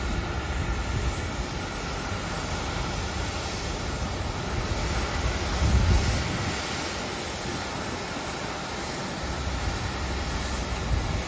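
Steady running noise of a jet airliner on the apron, with gusty low rumbling of wind on the microphone; a stronger gust comes about six seconds in.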